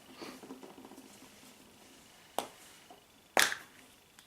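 Two sharp plastic clicks about a second apart, the second louder, from a Kinder Surprise egg's plastic capsule and toy being handled, with faint rustling before them.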